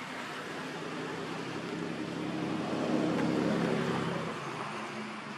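A motor vehicle passing by, growing louder to a peak about three seconds in and then fading away.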